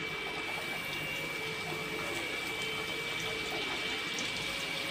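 Small pani poori dough discs deep-frying in well-heated oil: a steady sizzle with faint scattered crackles.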